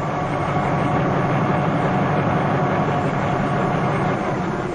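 A Bell 47 helicopter's piston engine and rotor running on the ground, making a steady drone.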